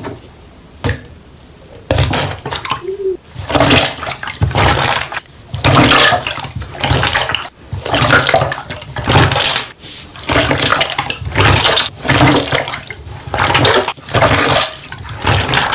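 Slime being squeezed and pressed by hand, making wet squelching and popping noises. The squishes come in short bursts about once a second.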